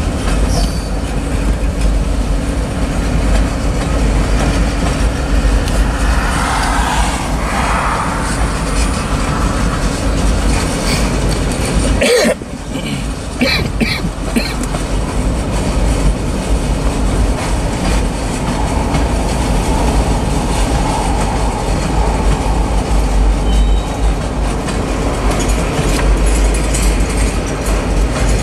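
Freight cars of a manifest train, covered hoppers and then tank cars, rolling past close by: a loud, steady rumble of steel wheels on the rails, with a brief dip in the noise about twelve seconds in.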